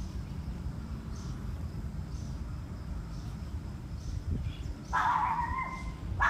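An animal's cry lasting about a second, about five seconds in, over a low steady rumble.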